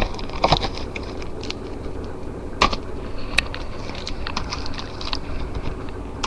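Handling noise: scattered clicks and light knocks as small hard objects are picked up and moved, over a steady low hum.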